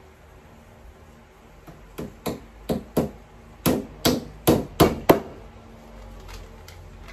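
A hammer striking a particleboard shelf panel during flat-pack assembly: nine sharp blows in quick succession starting about two seconds in, followed by two faint taps near the end.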